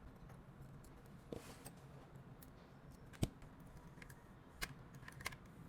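A few sharp, short clicks and taps of small hand tools working on a smartphone, the loudest about three seconds in, over a faint steady low hum.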